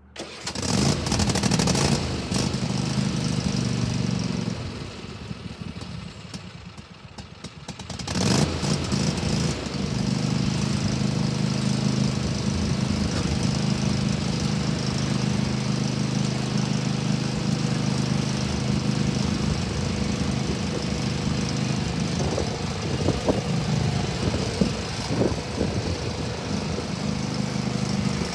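Cub Cadet LX46 XT2 riding mower's 23 hp Kohler engine starting up and running. It drops lower for a few seconds, rises again about eight seconds in, and then runs steadily, with a few knocks and rattles near the end.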